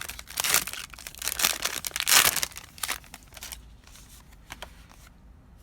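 Trading card booster pack wrapper being torn open and crinkled: a run of crackly rustles over the first three and a half seconds, loudest a little past two seconds, then only a few faint ticks.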